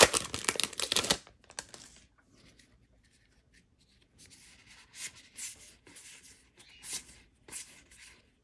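Foil booster-pack wrapper crinkling and tearing open for about the first second, then, after a quiet couple of seconds, short rustles of a stack of Magic: The Gathering cards being handled and slid apart.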